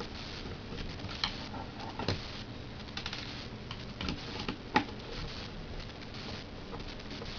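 Small screwdriver and fingers working on the plastic casing of an Xbox 360 Messenger Kit keyboard pad: scattered light clicks, ticks and scrapes of plastic and tiny screws, with one sharper click a little under five seconds in.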